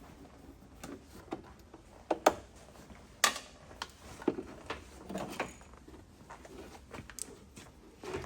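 Irregular clicks and knocks of hand tools and small parts being handled, about a dozen separate sharp ones, the loudest about two and three seconds in.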